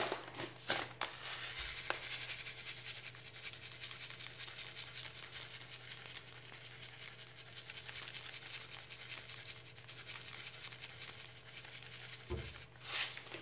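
White sesame seeds shaken from a small plastic bag onto sushi rice: a steady, fine rustling of seeds and rubbing plastic. There are a few crinkles of the bag in the first second and again near the end.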